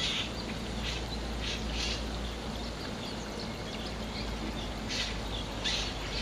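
Black-collared starling giving short, harsh, raspy calls: a pair near the start, another pair about a second and a half in, and a quicker run near the end. A steady low rumble runs underneath.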